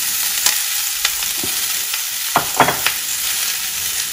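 Chopped onion, red bell pepper and celery sizzling in hot oil in a stainless steel pan as they are tipped in. A steady hiss runs throughout, broken by several short knocks as pieces land, the loudest a little past halfway.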